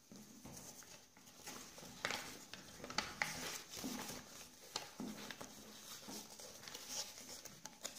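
A sheet of origami paper being folded and creased by hand against a wooden tabletop: faint, irregular rustles and small crackles of the paper.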